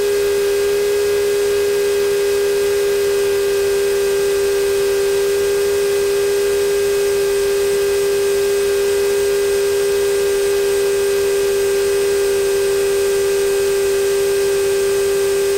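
Europa light aircraft's engine and propeller running at taxi power: a steady, even drone at one pitch with overtones.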